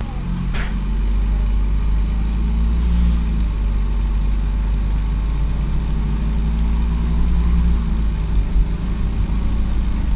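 Inside an Optare Solo single-deck bus on the move: steady low diesel engine and road rumble. The engine note shifts over the first few seconds, and there is a brief sharp click about half a second in.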